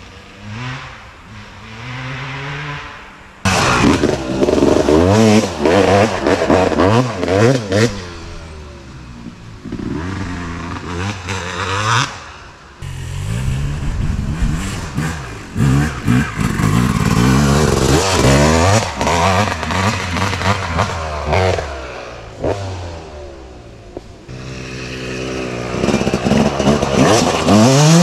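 Yamaha YZ250 single-cylinder two-stroke motocross engine with a Pro Circuit exhaust, revved hard and backed off over and over, its pitch climbing and dropping with each rev. Loud stretches of hard revving alternate with quieter ones; the sound jumps up suddenly about three and a half seconds in.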